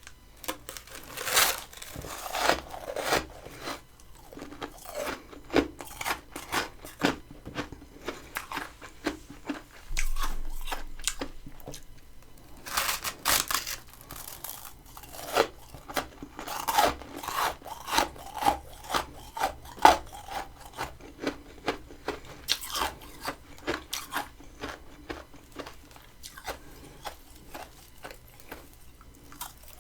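Close-miked crunching and chewing of freezer frost grown by a humidifier in a mini freezer: a string of sharp, crunchy bites and chews, with one longer drawn-out crunch about ten seconds in.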